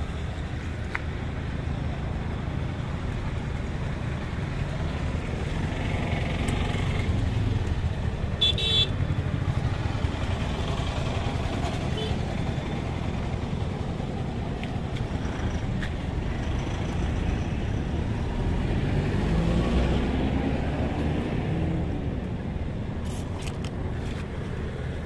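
Steady rumble of motor traffic, with a short high toot about nine seconds in, and a vehicle passing with its engine note rising about twenty seconds in.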